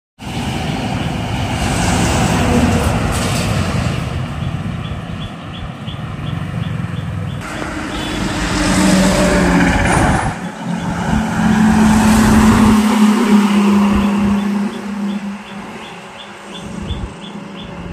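Heavy trucks and other road traffic passing on a highway: engines and tyre noise swell and fade as each vehicle goes by, with a steady engine hum from a passing truck in the second half.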